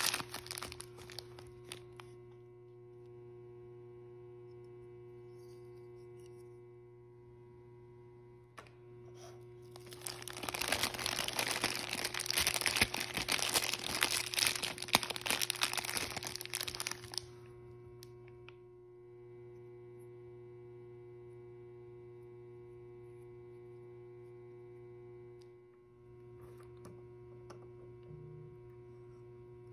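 Thin clear plastic wrappers crinkling and rustling as small toy figures are worked out of them. The crinkling comes in short bursts at the start and is loudest for several seconds from about ten seconds in, over a steady low hum.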